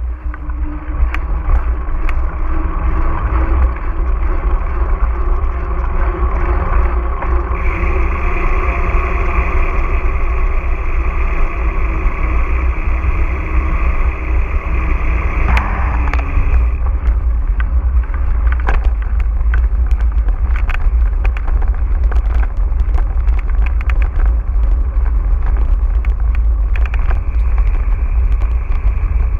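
Mountain bike ride heard on a GoPro's microphone: steady wind rush and tyre noise, with scattered sharp clicks and rattles from the bike.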